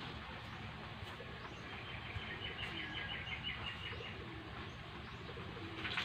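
A bird chirping in a quick run of short high notes for about two seconds, over a steady low background noise.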